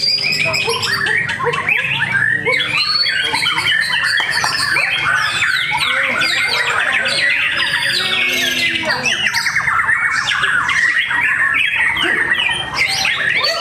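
White-rumped shama (murai batu) singing in a contest cage amid many other songbirds singing at once. The songs are dense and overlapping, a steady mass of chirps and whistles with no pause.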